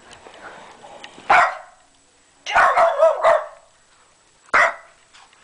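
Boston terrier barking at a talking toy it dislikes: a single sharp bark, a quick run of about three barks a second later, then one more bark near the end.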